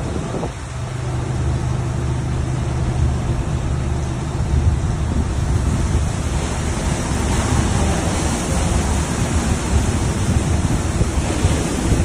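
Risense gantry bus-washing machine running, with its rotating brushes swishing over the front of a bus. A steady motor hum sits under a continuous rushing hiss, which grows brighter about halfway through.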